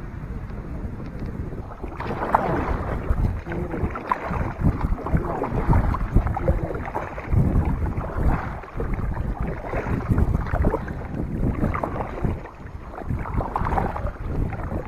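Two-person kayak being paddled on the sea: paddle blades dipping and splashing and water sloshing against the hull, with wind buffeting the microphone. The splashing starts about two seconds in.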